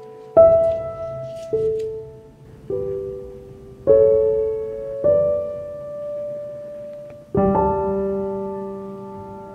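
Background music of slow solo piano: single notes or soft chords struck about once a second, each left to ring and fade, with a longer pause before a fuller chord near the end.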